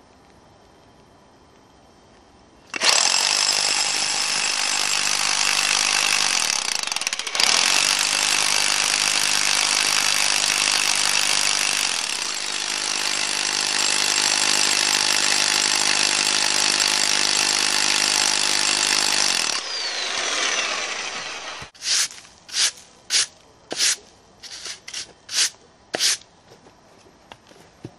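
A 1050 W SDS-Max rotary hammer drilling a hole into a stone boulder for splitting wedges. It starts about three seconds in, runs steadily with one brief stop, and winds down near the twenty-second mark. It is followed by a run of short scraping strokes about half a second apart as drill dust is brushed off the stone.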